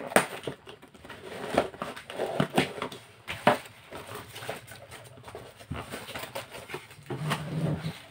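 Cardboard parcel box and its packaging being handled and opened by hand: irregular rustling, scraping and sharp taps and knocks of cardboard, the loudest knocks about a second apart early on and about three and a half seconds in.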